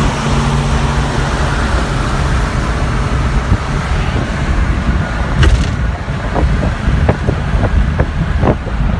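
Road, engine and wind noise inside a 1960 Plymouth Belvedere cruising at highway speed: a dense steady rumble with hiss. A low engine hum fades out about two seconds in, and the high wind hiss thins about halfway through, followed by several soft knocks.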